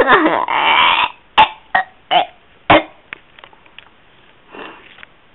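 A person's voice groaning a rough 'urgh' for about a second, then four short sharp sounds about half a second apart, followed by a few faint clicks.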